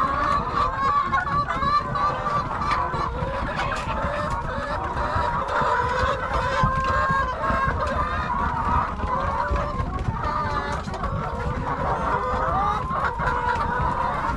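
A flock of laying hens clucking and chattering without pause, many calls overlapping.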